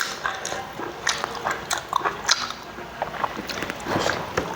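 A person chewing and biting food close to the microphone: irregular wet mouth clicks and smacks.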